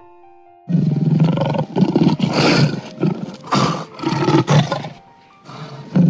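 A large animal roaring in a run of long, rough bursts, with a short pause before a last burst near the end. A few soft music notes come before the first roar.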